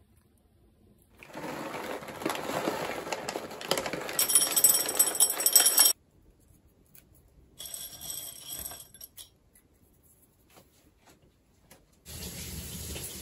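Dry dog kibble rattling and clattering into a bowl, louder toward the end and cut off sharply, then a shorter bout of hands rustling and breaking the kibble pieces. A steady hiss starts near the end.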